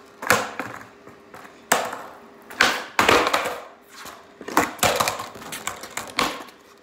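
Skateboard deck and wheels hitting a concrete floor in a series of sharp clacks and slaps, each with a short fading rattle: kickflip attempts, the board flipping and landing.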